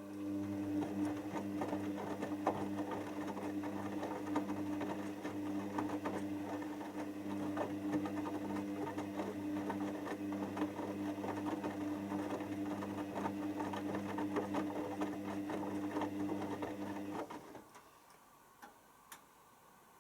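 Hoover DYN7144XD1 washing machine running mid-cycle: a steady motor hum with a busy crackling rattle over it, which cuts off suddenly near the end, followed by a couple of faint ticks.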